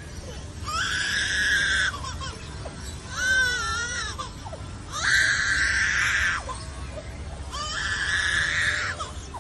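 Lyrebird mimicking a crying baby: four loud wailing cries, each about a second long, the second wavering up and down in pitch.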